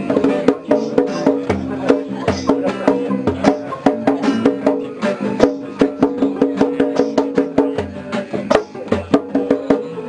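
Live acoustic guitars strumming held chords, with sharp percussive clicks keeping a steady beat several times a second.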